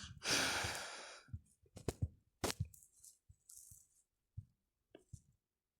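A person's sigh, a breathy exhale close to the microphone that fades over about a second, followed by a few faint short clicks.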